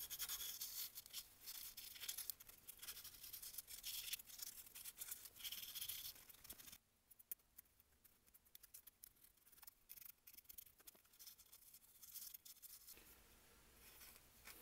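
220-grit sandpaper rubbed quickly back and forth over the seam of a 3D-printed lure body, a fast scratchy rasp of many short strokes. It stops abruptly about seven seconds in, leaving only a few faint clicks.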